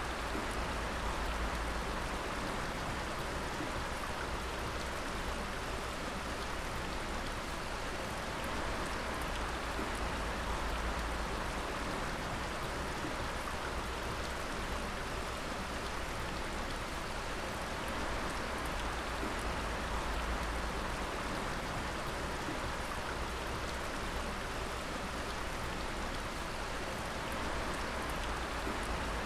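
Water dripping steadily, many drops pattering over a constant wash of running water.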